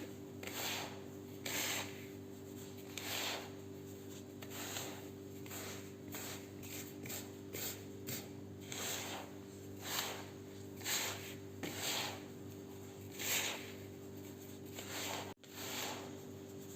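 Coarse semolina and sugar being rubbed and mixed together in a bowl: repeated short, gritty rasping strokes, about one a second, as the grains are worked until they are loose and separate.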